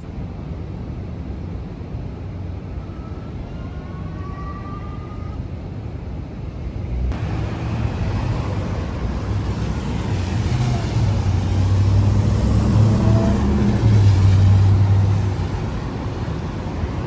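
City street traffic: a steady low road rumble of passing cars. It jumps louder about seven seconds in, and a vehicle passes close by in the last third before the noise eases.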